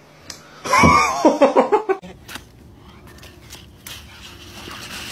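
A burst of laughter: a loud cry that breaks into a quick run of short ha-ha pulses, dying away about two seconds in, followed by a few faint clicks.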